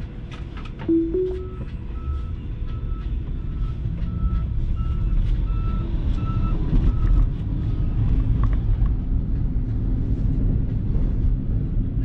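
Low road and tyre rumble inside a slow-moving car's cabin, with a construction vehicle's reversing alarm beeping about one and a half times a second from about a second in until about eight seconds in. A short two-note tone, the loudest sound, comes about a second in.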